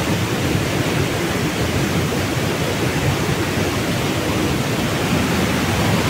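Waterfall rushing: a steady, loud, even noise with a deep rumble underneath.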